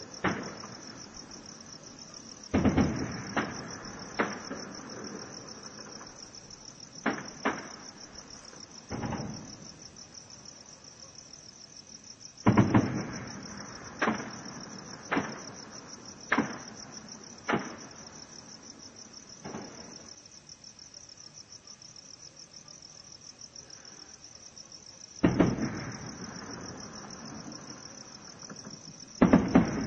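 Sporadic distant gunfire: single shots and pairs, irregularly spaced a second or more apart, each echoing briefly. The three heaviest reports, near the start, about midway and near the end, carry longer rumbling tails. Crickets chirp steadily underneath.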